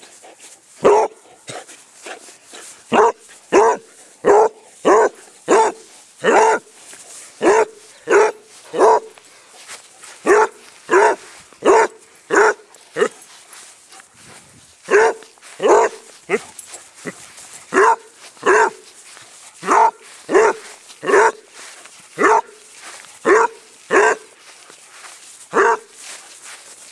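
Dog barking over and over in short barks, often in quick pairs, with a few brief pauses, as it plays at being chased.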